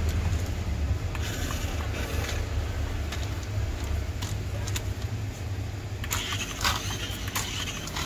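Small electric drive motor of a toy RC off-road rock crawler running with a steady hum. From about six seconds in, a hiss and clattering join it as the car drives across the floor.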